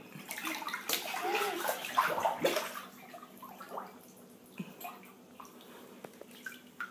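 Water and Orbeez water beads sloshing and splashing in a bathtub as a child moves through them and dunks his head. Busiest in the first three seconds, then quieter with scattered small splashes.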